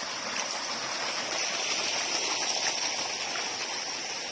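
Water gushing out of the open end of a plastic pipe and splashing onto wet ground: a steady rush.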